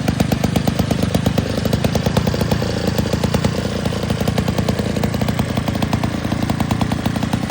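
Vintage 1940 Stihl BD two-man chainsaw engine running steadily, with a fast, even firing rhythm.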